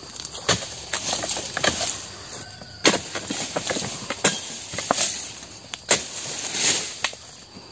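Dodos, a pole-mounted steel chisel, chopping into the frond stalks of a low oil palm: several sharp cutting strikes at uneven intervals, with rustling and scraping of the stiff palm fronds between them.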